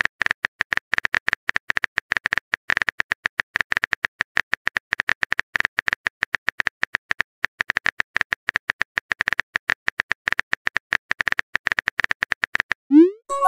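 Rapid, irregular keyboard-tap clicks from a texting app's typing sound effect, keeping on without a break. Near the end comes a short rising pop, the cue for a message being sent.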